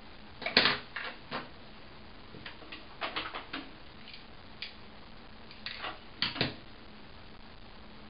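Light clicks and taps in small clusters as hair-styling tools are handled, with the loudest about half a second in and a pair around six seconds in.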